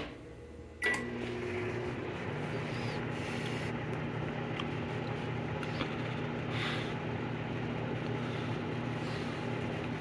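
A GE Spacemaker XL1800 microwave oven gives a short keypad beep as it is started, then runs with a steady hum.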